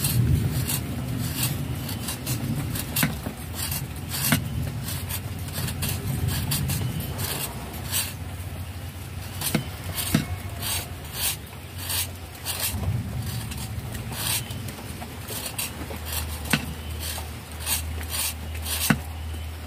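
A knife scraping shavings off a block of palm sugar into a mortar, in repeated short scraping strokes, unevenly spaced.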